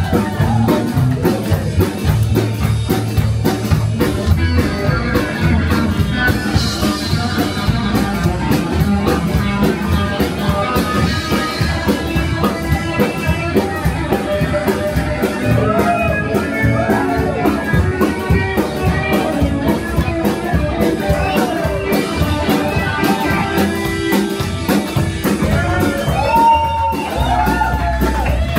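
Live rock and roll band playing: upright double bass, electric guitar and drum kit.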